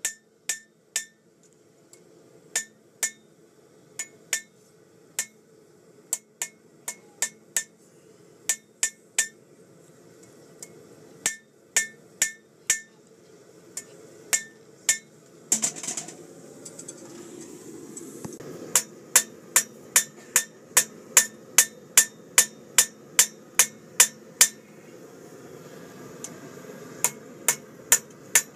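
Hand hammer striking hot steel on an anvil while a knife blade is forged, each blow ringing briefly. The blows come spaced and uneven at first, with a short rough noise about sixteen seconds in, then a steady run of about two blows a second, a short pause, and more blows near the end.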